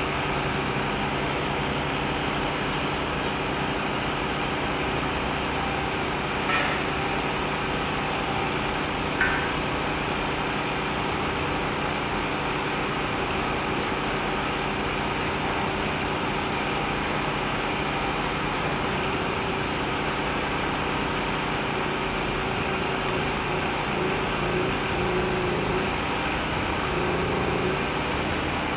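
Steady engine drone with a low hum of several tones, from a large container ship passing close offshore. Two brief high chirps come about six and nine seconds in.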